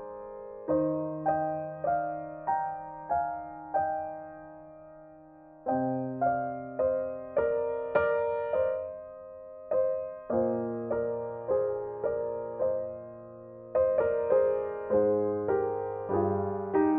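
Background piano music: single notes struck at a slow, even pace, about one and a half a second, over held bass notes, with a couple of brief lulls.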